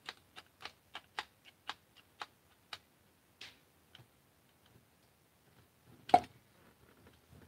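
Hand driver tightening a fastener in a plastic Nerf Caliburn blaster: a run of sharp clicks about four a second that thins out after about three seconds, then one louder knock about six seconds in.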